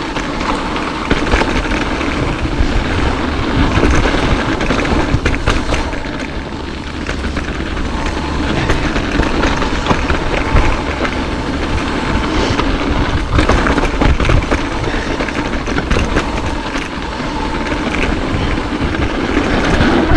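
Mountain bike rolling along a dirt trail at speed: a steady rush of wind and tyre noise, with frequent rattles and knocks from the bike over bumps.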